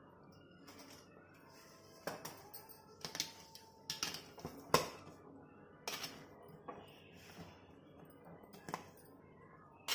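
Metal ladle and spoon knocking and scraping against a steel pan while stirring dried dates in milk. There are a handful of sharp clinks, the loudest a little before halfway.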